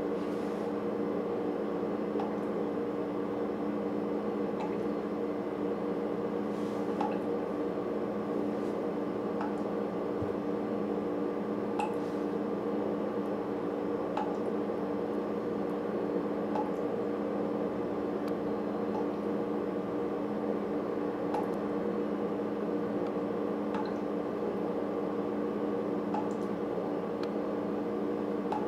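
Water dripping slowly from a faucet, a faint drop landing about every two seconds over a steady hum.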